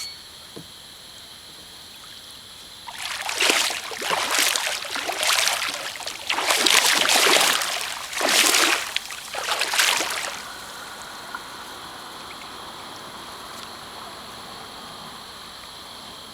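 Water splashing and churning in several loud surges over about seven seconds, then stopping: a big hooked flathead catfish thrashing at the surface beside a kayak.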